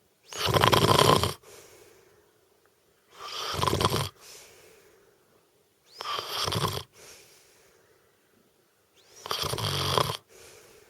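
A woman snoring in a steady rhythm: four loud snores about three seconds apart, each followed by a softer, fading breath.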